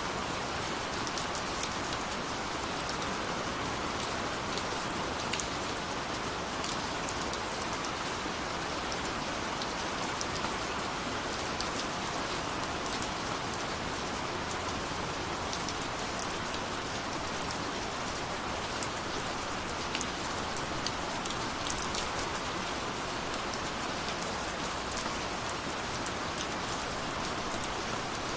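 Steady rain falling on a surface, an even hiss with many separate drop ticks scattered through it.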